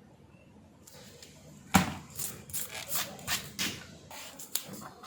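Handling noise from tools and parts on a repair bench: one sharp knock about two seconds in, then a quick run of clicks and taps.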